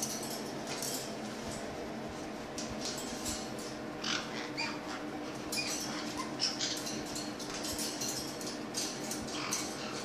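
Caiques giving scattered short, high squeaks and chirps while tugging at a paper towel on the cage top, over a steady low hum.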